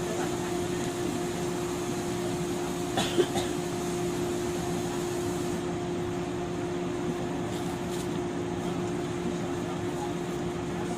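Steady hum of a standing 103-series electric train's onboard equipment, one even tone over a low background noise, with a couple of short clicks about three seconds in.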